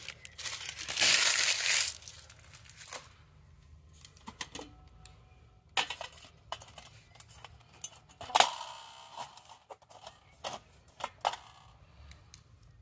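Two loud crinkling, tearing bursts in the first two seconds, like packaging being handled or torn, then scattered light knocks and clinks of camp cookware, with one sharper ringing clink about eight seconds in.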